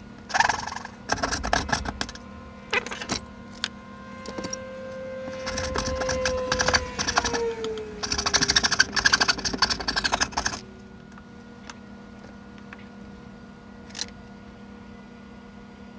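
Hand sawing of wood with a dovetail saw and a coping saw, sped up, so the strokes run together into quick clicking rasps. The sawing stops about ten seconds in, leaving a few isolated taps. A held tone slides slowly down in pitch through the middle of the sawing.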